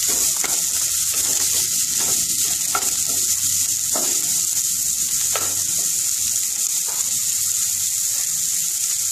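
Chopped onion, carrot and cauliflower sizzling steadily in hot oil in a nonstick kadai, stirred with a wooden spatula that gives a few light scrapes against the pan.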